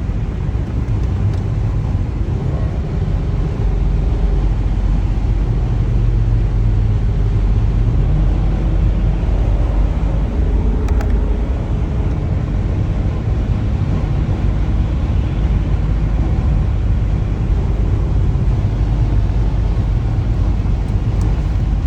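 Steady low rumble of a moving vehicle heard from inside the cabin: engine and tyre noise on the highway.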